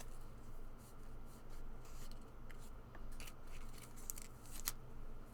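Light handling of a card-deck box and its paper contents: soft rubbing and rustling strokes with a few small sharp ticks.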